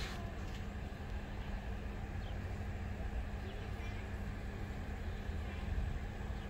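Outdoor background noise: a low, uneven rumble and a steady low hum, with a few faint bird chirps and a sharp click right at the start.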